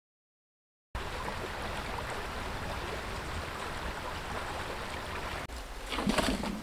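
A creek's water running steadily, starting suddenly about a second in after a moment of silence, with a few short knocks near the end.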